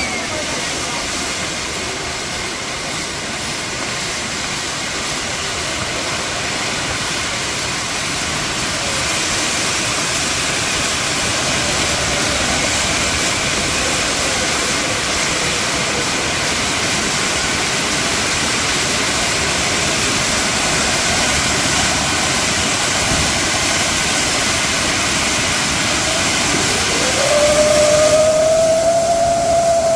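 Kambam fireworks tower burning at full blast: a dense, unbroken hissing rush of spark fountains, swelling slightly partway through. Near the end a rising whistle glides up and holds over it.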